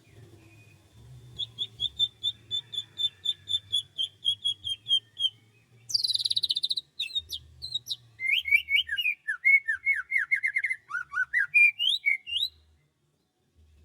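Songbirds singing: a run of quick, evenly repeated high notes at about four a second, a loud harsh call about six seconds in, then a fast, varied string of chirps that slide down and up before stopping shortly before the end.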